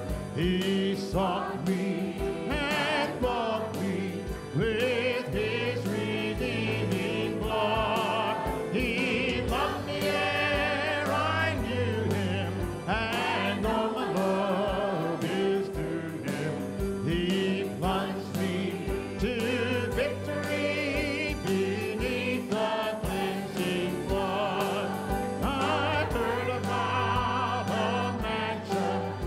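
Congregation singing a hymn together with instrumental accompaniment and a steady beat.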